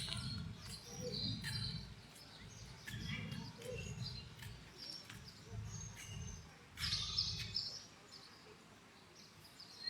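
Small birds chirping, with short calls scattered throughout and overlapping, over a low rumble that comes and goes.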